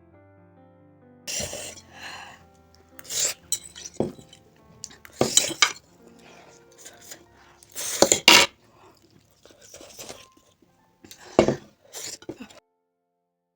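Close-miked noodle eating: a utensil clinking and scraping against the dish in about seven short, sharp bursts. The loudest comes about eight seconds in, and the sounds stop abruptly near the end.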